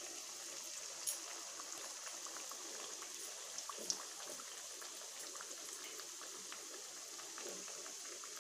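Litti, dough balls stuffed with sattu, deep-frying in hot refined oil in a steel kadhai: a steady sizzle full of small crackles, with a sharper pop about a second in and another near four seconds.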